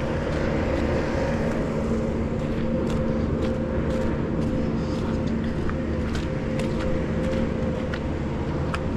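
Skid steer's diesel engine running steadily at a constant speed.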